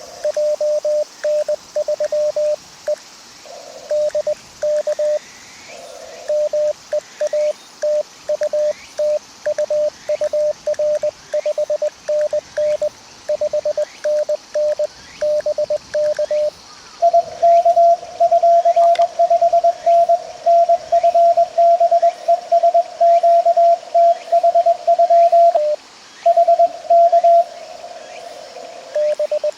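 Morse code (CW) tones from an amateur radio transceiver, keyed at about 20 words per minute. A station keys at one pitch for the first half. A second signal at a slightly higher pitch then takes over with a longer run, and the first pitch returns briefly near the end, like two stations trading a contact.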